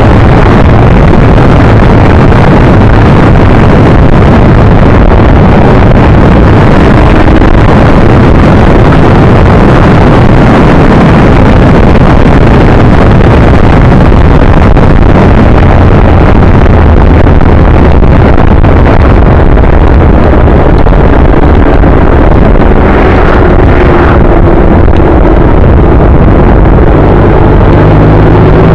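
Wind roaring on the microphone while riding a bike, so loud that the recording is overloaded. A faint engine tone shows through in the last few seconds.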